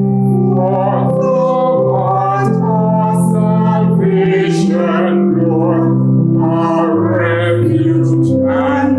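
Music: a singing voice over sustained instrumental accompaniment, with held low notes that change every second or two.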